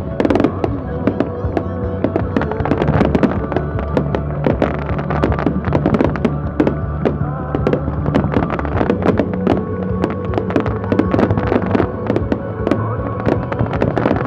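Fireworks going off in a dense, continuous run of crackling bursts and pops, several a second, over music with long held notes.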